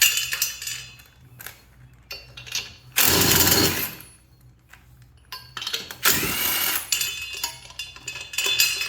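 A handheld power tool run in two short bursts, spinning lug nuts off the studs of a garden tractor's axle extension, with a few sharp metal clicks between them.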